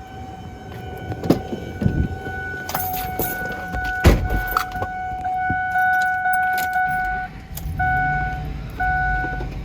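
A Ford Expedition's warning chime sounding, first as a steady tone and then beeping about once a second near the end, with keys jangling and a few sharp knocks in the first half.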